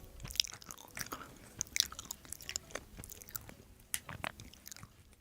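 Close-miked chewing: irregular wet mouth clicks and smacks as food is eaten.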